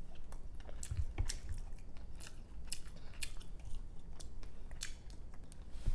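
Close-up chewing and biting of the hard cooked white of a balut duck egg: irregular small clicks and wet mouth sounds.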